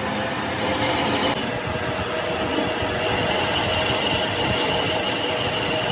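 A machine running steadily: a dense mechanical noise with a continuous high whine that grows clearer about three seconds in.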